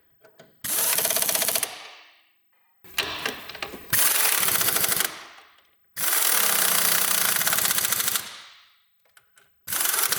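Pneumatic impact wrench hammering in four bursts of one to two seconds each, a fast rattling run of blows.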